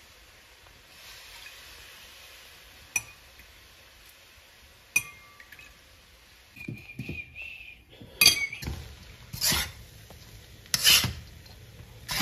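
A metal ladle clinking against a wok and a bowl while sticky rice is worked in the wok. There are a few sharp clinks that ring, spaced a couple of seconds apart, then in the second half a run of louder scrapes and knocks as the rice is stirred.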